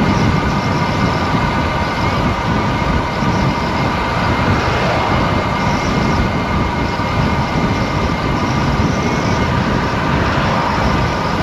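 Strong wind buffeting the microphone of a camera on a moving road bike: a loud, dense rumble that never lets up, with a faint steady whine above it.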